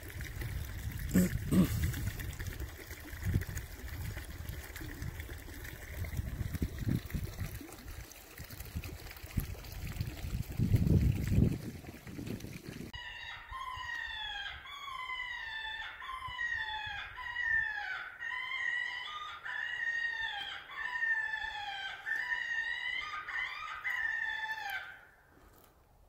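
Wind buffeting the microphone over trickling stream water. After a sudden cut about halfway through, an electronic game caller plays an animal distress call: a fast run of squealing, mewing cries that bend up and down in pitch, stopping about a second before the end.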